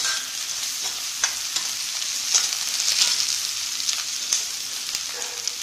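Sun-dried brinjal pieces, sliced onion and green chillies sizzling in hot oil in a metal kadai, stirred with a metal slotted spoon that scrapes and knocks against the pan again and again. A sharp knock comes right at the start.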